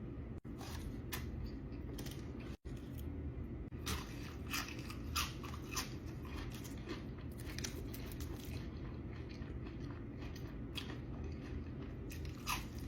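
Close-miked eating: irregular crunchy bites and chewing of fried fast food, over a steady low background hum.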